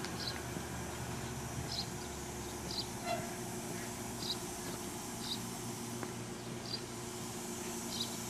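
Train with a fluted stainless Pullman private car alongside the platform: a steady low hum and rumble, with faint short high squeaks about once a second.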